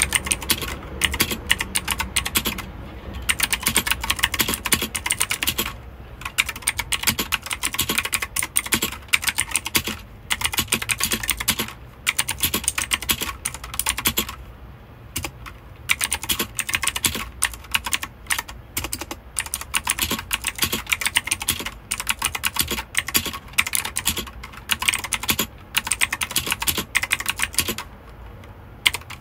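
Typing on a mechanical keyboard: fast runs of key clicks and clacks, broken by short pauses every few seconds.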